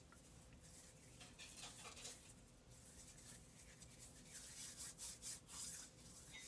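Sheer ribbon being crinkled and rubbed between the hands to give it texture: faint, soft rustling that comes more often in the second half.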